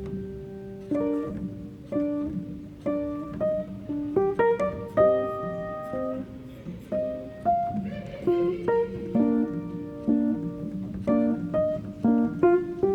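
Background music: plucked guitar notes in a gentle, unhurried melody.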